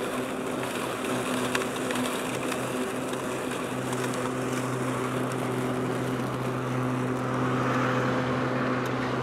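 Powersmart 80-volt cordless self-propelled lawn mower running steadily while cutting grass and bagging leaves: an even electric hum over the whoosh of its twin blades.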